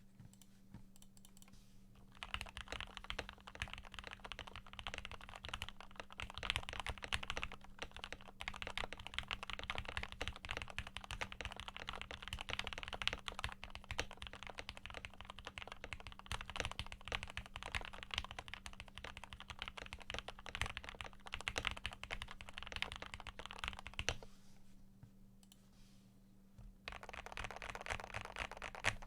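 Fast continuous typing on a 60% custom mechanical keyboard with lubed Gateron Pro Yellow linear switches and PBT keycaps, its plastic case filled with foam and tape-modded. The typing starts about two seconds in, pauses briefly near the end, then resumes.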